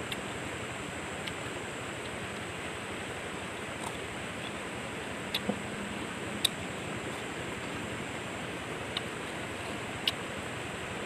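Steady hiss of flowing river water, with a few short, sharp crunches and clicks scattered through it, the loudest about six and a half seconds in, from cucumber being bitten and chewed.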